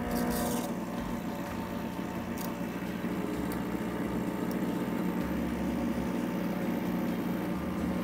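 Rancilio Silvia espresso machine's vibratory pump humming steadily as it pushes water through the boiler and out the open valve, with a hiss of water and steam. Fresh water is run through to cool the boiler back down from steam temperature.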